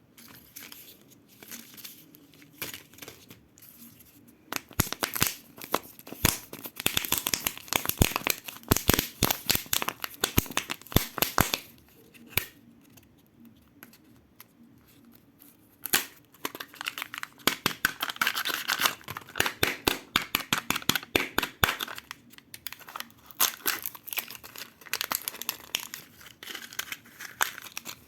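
Crinkly plastic-foil wrappers of Kinder Joy eggs being torn open and crumpled by hand, close to the microphone. There are dense bursts of crackling with a quieter lull about halfway through.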